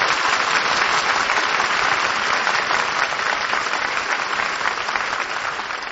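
Studio audience applause from a 1948 radio broadcast recording: dense, even clapping that fades a little toward the end.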